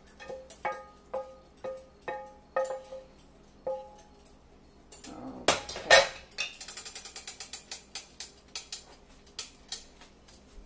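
Wooden spatula tapping and scraping against a stainless steel pot, about eight taps roughly half a second apart, each one ringing. This is followed by a loud clatter as a frying pan is set down on an electric coil burner, then a few seconds of quick, light ticking.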